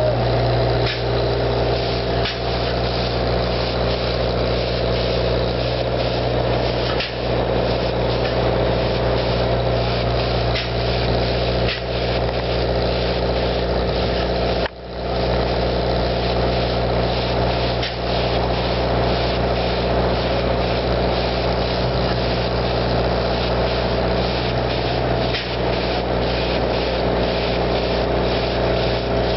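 A large engine running steadily at a constant pitch, briefly cutting out about halfway through.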